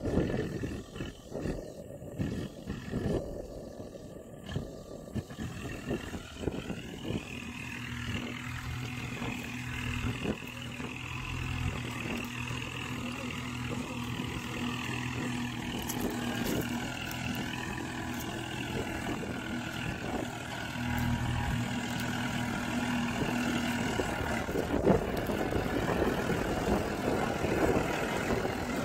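Kubota MU4501 tractor's four-cylinder diesel engine running steadily under load, pulling a tine cultivator through the soil, louder toward the end as it comes close. Wind buffets the microphone in the first few seconds.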